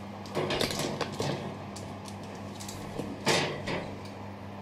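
Metal baking tins knocking and scraping on an oven's wire rack as they are slid in, a few short knocks with the loudest about three seconds in, over a steady low hum.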